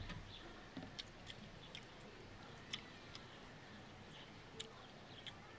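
Faint eating sounds: a few soft, scattered clicks as rice is picked off a banana leaf by hand and chewed.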